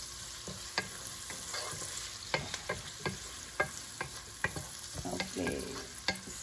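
Pork, onion, garlic, tomato and potato sizzling in oil in a nonstick pot as a wooden spatula stirs them. The spatula makes irregular sharp clicks and scrapes against the pan over a steady frying hiss.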